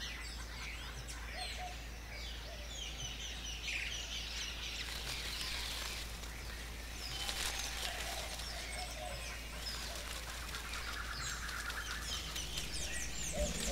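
Small birds chirping and twittering continuously, many short, quick high chirps overlapping.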